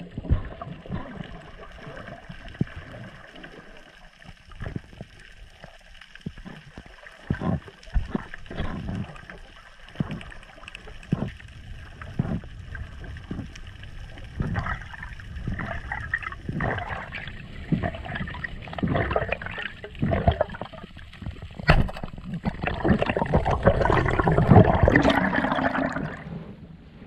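Water gurgling and sloshing around a camera held underwater, in irregular short bursts, with a louder stretch of rushing water near the end.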